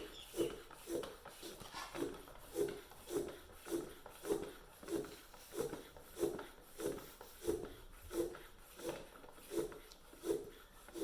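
Bicycle floor pump being worked in a steady rhythm, about a stroke and a half a second, inflating a tubeless road tyre to seat its beads on the rim.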